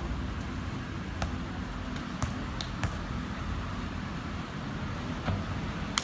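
Basketball game court sounds: a handful of sharp knocks from the ball bouncing on the court over steady background noise.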